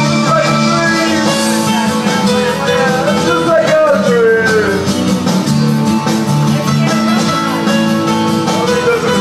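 Man singing karaoke into a microphone over a recorded rock backing track with guitar, loud and steady.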